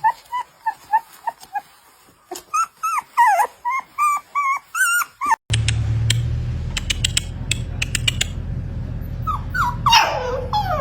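Young puppies whimpering and yipping in short, high, bending squeaks, two or three a second. After a sudden change to a steady low hum with scattered clicks, a louder, longer whining cry comes near the end.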